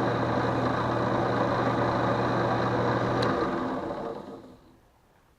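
Drill press motor running steadily with a low hum, spinning a wooden ring being finished with beeswax and linseed oil. About three seconds in it is switched off with a click and spins down to a stop over a second or so.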